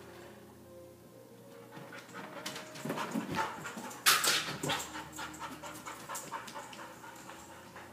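A dog panting and moving about, its nails clicking on a hardwood floor. The panting is a sign of its separation anxiety. A short, loud, noisy burst comes about four seconds in.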